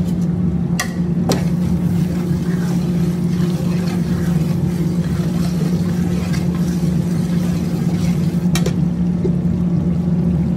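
Steady low mechanical hum, with a metal spoon knocking against a large aluminium cooking pot a few times, twice about a second in and once near the end, as a simmering curry is stirred.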